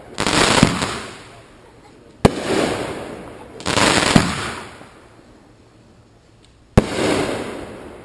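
Fireworks going off one shot after another: a sharp bang, then about a second later a longer hissing burst that fades away, repeated every few seconds. Two bangs and three bursts fall in the span.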